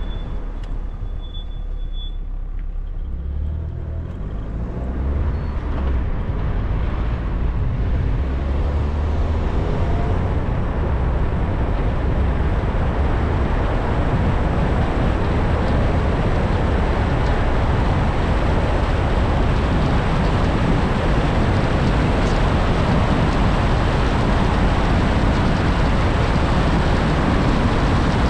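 A car driving on an open road: its engine note rises as it picks up speed over the first several seconds, then settles into steady tyre and wind noise at speed.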